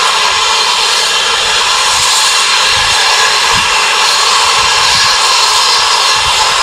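GWR King class steam locomotive 6023 King Edward II standing with its safety valves blowing off: a loud, steady hiss of escaping steam. This is the sign of the boiler at full working pressure.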